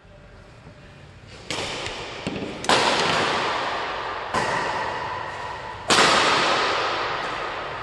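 Badminton rackets striking a shuttlecock in a rally, four sharp cracks about a second and a half apart, each ringing on and fading slowly in the hard-walled hall; the second and fourth are the loudest.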